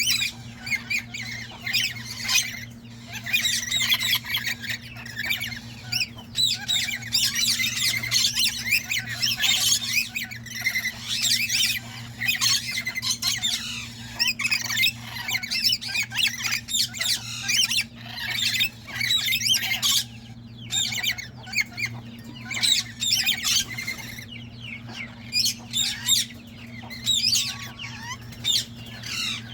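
Many birds squawking and chirping at once in a dense, continuous chatter of quick high calls, over a steady low electrical hum.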